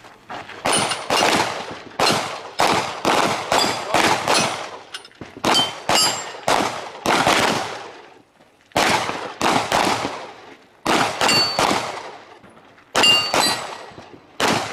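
Several handguns firing in a rapid, irregular string of about two dozen shots. Some hits ring briefly on hanging steel plate targets.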